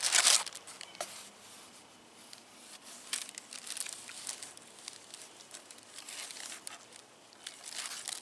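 Packaging being handled and opened: a loud rustle at the start, then scattered short bursts of crinkling and tearing with small clicks.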